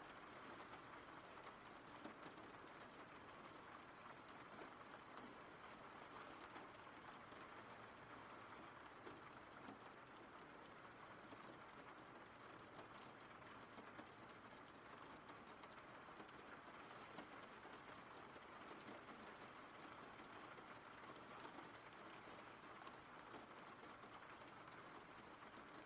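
Faint, steady rain: an even hiss of falling rain with the odd light drop tick.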